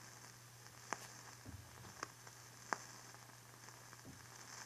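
Faint background noise of an old mid-1950s recording: a steady low hum under a light hiss, with a few soft clicks about one, two and two and a half seconds in.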